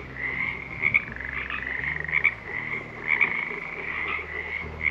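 A chorus of frogs calling continuously, many overlapping high-pitched trills blending into a steady din.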